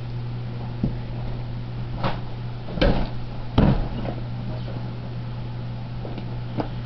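Handling noise from a Glock pistol being moved about in the hand over a cloth: several scattered knocks and clunks, the loudest two near the middle, over a steady low hum.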